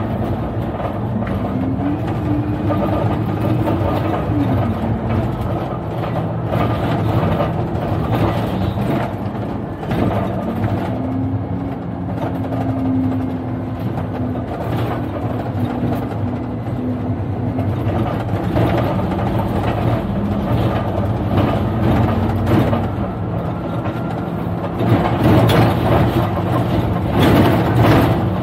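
Alexander Dennis double-decker bus on the move: its engine and drivetrain run steadily, with a whine that rises and falls twice as the bus gathers and sheds speed. Louder rattling and knocking near the end.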